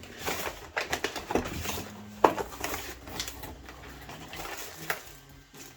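A massage gun's box and packaging being handled and opened by hand: rustling with scattered clicks and knocks, and one sharp click a little over two seconds in.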